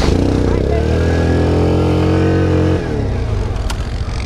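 ATV engine revved up sharply and held at high revs for about two seconds, then dropping back to a lower, uneven running.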